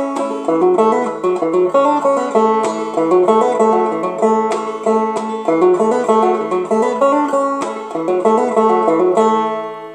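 Banjo played clawhammer style: a steady, rhythmic run of plucked notes and brushed strums. Near the end the playing stops and the last notes ring on and fade.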